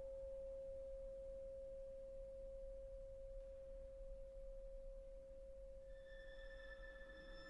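Tubular bell's note ringing on as one steady, slowly fading tone. About six seconds in, strings come in softly on high held notes.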